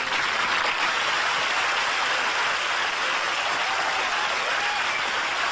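Steady applause from a crowd of clapping hands.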